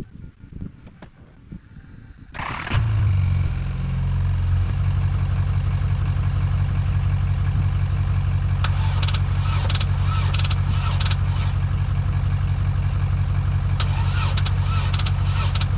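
A service truck's engine starts about two and a half seconds in and then idles steadily, with a few short higher-pitched noises over it in the second half.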